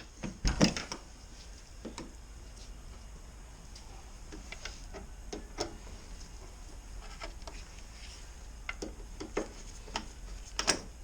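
A screwdriver being turned in the screw of a car door handle mechanism, making scattered small clicks and ticks of metal and plastic, a few louder ones near the start and near the end.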